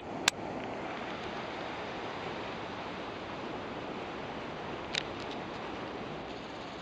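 Steady rushing outdoor noise of wind and the sea surf at the foot of the cliffs. Two sharp clicks at the very start and a few faint ticks about five seconds in.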